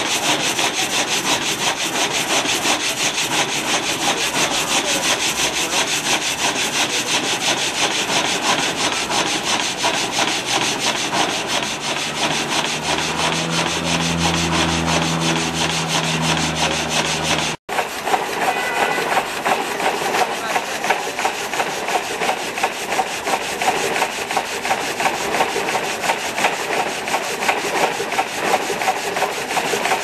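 Belt-driven reciprocating frame saw cutting through a log, its blade rasping in a fast, even rhythm of strokes. The sawmill is powered by a Merlin et Cie portable steam engine.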